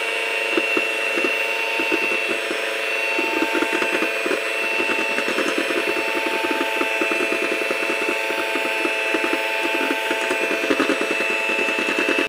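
Philips electric hand mixer running steadily at speed, with a constant motor whine and fast irregular ticking. It is whipping egg whites into meringue while sugar is added. It cuts off suddenly at the end as the mixer is switched off.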